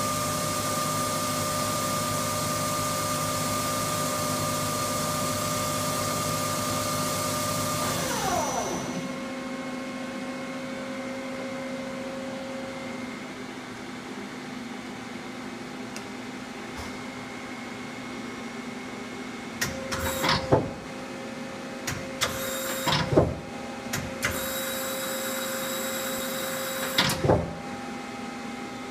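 Hwacheon Hi Eco 31A CNC lathe running: its spindle drive gives a steady whine over a hum, then winds down with falling pitch about eight seconds in, leaving the machine's quieter steady hum. Later come several short, sharp mechanical clunks and whirs a second or two apart.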